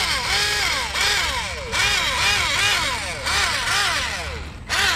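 Small brushed electric motor of a capsized JJRC Pentium S1 RC boat running in repeated bursts, its propeller churning water. The whine sweeps up and down about three times a second, and a hiss of spray surges about every second and a half. This is a capsize-recovery attempt with the rudder turned hard that does not flip the boat back over.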